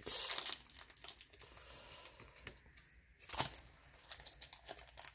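Trading card packs and cards being handled: a wrapper crinkling and tearing, with irregular rustles and snaps. The loudest come near the start and about three and a half seconds in.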